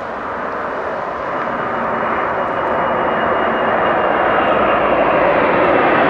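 Boeing 747-400's four jet engines at takeoff power, the noise growing steadily louder as the airliner comes closer. A faint high whine comes in about two seconds in.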